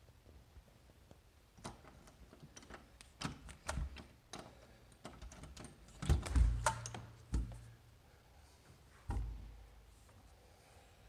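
Light clicks and knocks, then about six seconds in a door latch clicks and a panel door is pushed open with a low thump. Another single thump follows about nine seconds in.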